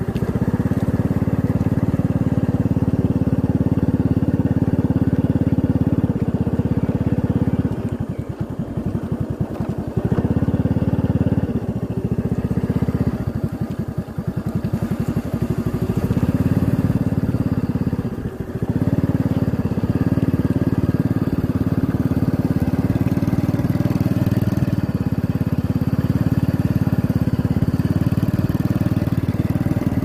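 Motorcycle engine running at low road speed, a steady low pulsing note that drops briefly about four times as the throttle eases off and picks up again.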